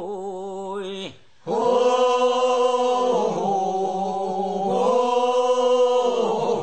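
Korean funeral bier-carriers' chant (sangyeo-sori) sung in long, held notes with a wavering pitch, on the drawn-out vowels of its refrain. It breaks off briefly about a second in, then one long phrase is held to the end.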